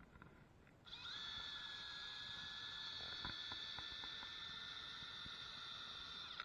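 Electric drill motor spinning up about a second in, running at a steady high whine for about five seconds, then winding down and stopping.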